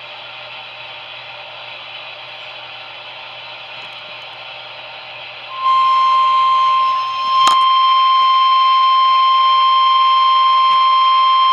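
NOAA Weather Radio receiver hissing with open-channel static. About halfway through, the steady single-pitched 1050 Hz warning alarm tone cuts in loudly and holds, with one short click. The tone signals that a warning message is about to be broadcast.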